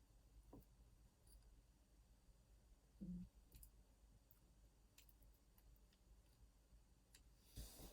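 Near silence broken by a few faint, scattered clicks of small metal lock parts being handled, with a soft knock about three seconds in and a brief rustle near the end, as the retaining plate is worked at in an Opnus TEX lock cylinder that is being taken apart.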